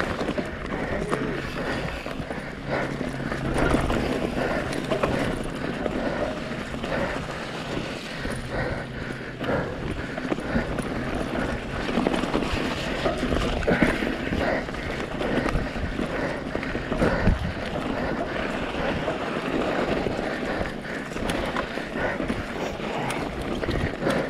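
Full-suspension enduro mountain bike riding fast down a rough forest trail, its tyres and frame clattering and knocking over rocks and roots, with wind buffeting the camera's microphone.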